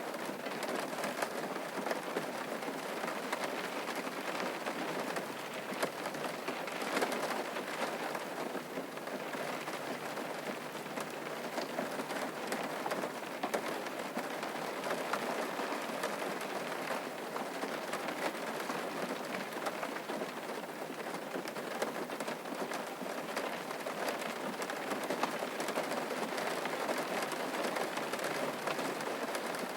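Steady rain falling, with many separate drops ticking on a surface.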